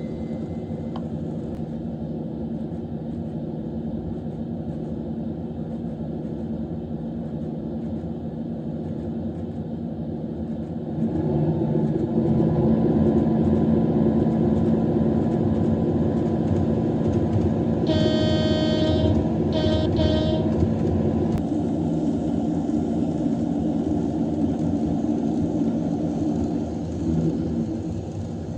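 Recorded Cummins diesel engine sound of a KiHa 85 railcar, played back by an N-gauge model train's sound card. The engine runs steadily, steps up louder about a third of the way in as it is throttled up to accelerate, and settles back near the end. A horn sounds twice in a row about two-thirds of the way through.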